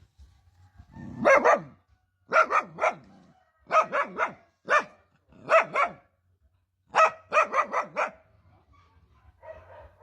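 Barking in quick volleys of two to five barks, about sixteen in all, with short pauses between the volleys.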